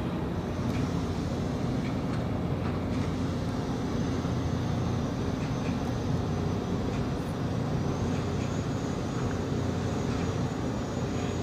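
A boat's engine running steadily: a low, even drone.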